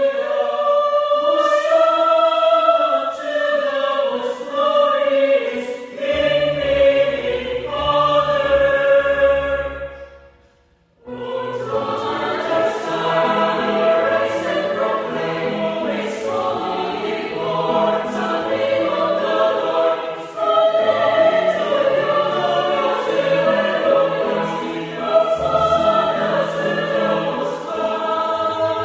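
Mixed choir of women's and men's voices singing a sacred anthem in parts. The singing dies away briefly about ten seconds in, then the choir comes back in together.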